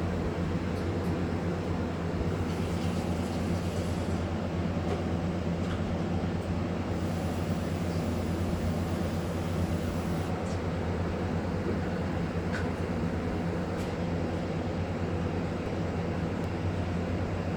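A steady low hum made of several fixed tones, unchanging throughout, with a few faint clicks.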